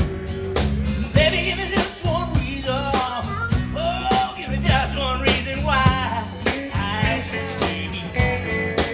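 Live blues-rock band playing: regular drum strokes and a steady bass line under guitars, with a bending, wavering lead melody on top.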